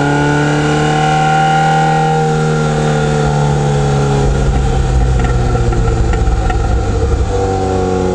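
1985 Ferrari 308 QV's flat-plane-crank V8 running while the car is driven, heard from outside by the rear wheel. The engine note rises slightly, then slowly falls. About halfway through it fades under a low rumble, and it comes back near the end.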